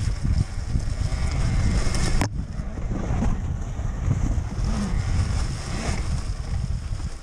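Wind noise on the microphone while a Talaria Sting MX4 electric dirt bike rides rough forest trail, its motor nearly silent, with one sharp knock about two seconds in.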